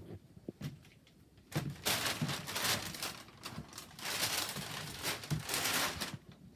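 Rustling and crinkling as a quilted futon mattress is handled and spread out, in two long stretches of noise, with a few soft bumps near the start.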